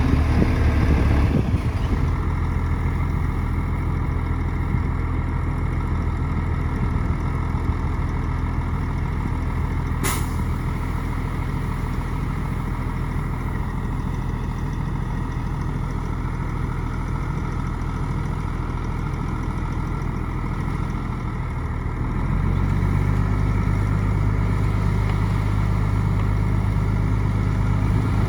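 Heavy diesel engine of earthmoving machinery running steadily. It eases off about a second and a half in and works harder again from about 22 seconds, with a single sharp click near the middle.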